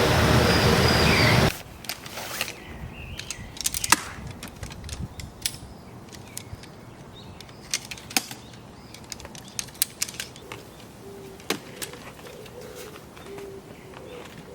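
A loud, steady rushing noise cuts off abruptly about a second and a half in, leaving quiet forest ambience with scattered sharp clicks and taps and a few brief bird chirps. Near the end a dove coos in short, low, repeated notes.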